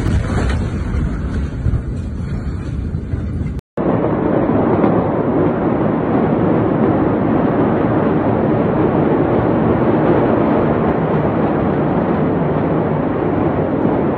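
Steady, loud rushing noise of wind on a phone microphone, broken by a short silent gap about four seconds in.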